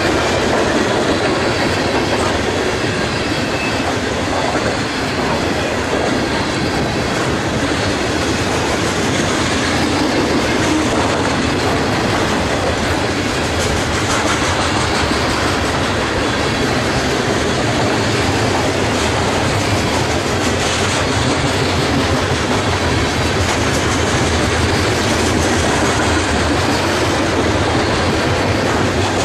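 Freight train of container-loaded cars passing close by: steel wheels rolling on the rails, loud and steady throughout.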